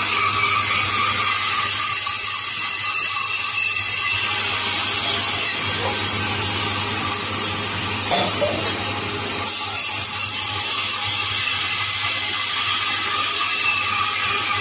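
Band saw running and cutting through a thick wooden board: a steady motor hum under the continuous hiss of the blade in the wood.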